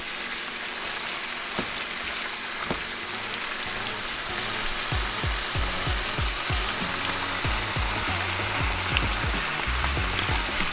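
Shrimp sizzling steadily in olive oil and white wine in a skillet, under background music whose deep bass beat comes in about halfway.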